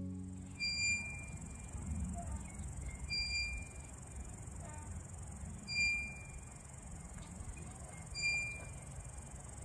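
Outdoor ambience with insects: a steady high-pitched buzz, a short clear chirp repeated about every two and a half seconds, and a low rumble underneath.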